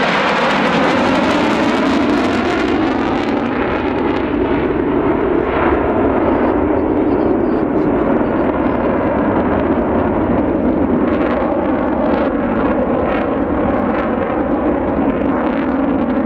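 Jet aircraft flying past, its engine roar falling in pitch as it goes by, then a steady rumble as it draws away.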